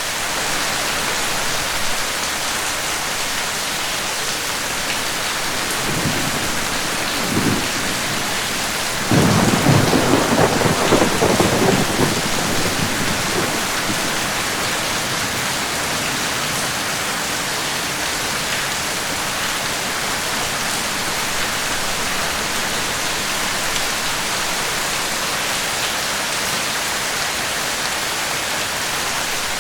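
Steady rain falling, with a brief low rumble of thunder about six seconds in and a louder peal of thunder rolling from about nine to thirteen seconds in.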